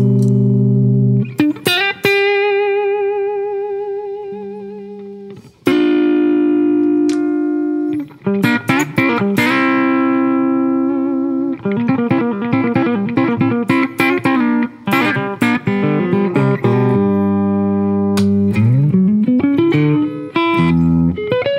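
Hagstrom Viking semi-hollow electric guitar played clean through the Fairfield Circuitry Accountant compressor pedal, which is switched on, and a tube amp: ringing chords and single notes with long sustain. About two seconds in, a held note wavers with vibrato for several seconds, and near the end a note slides upward.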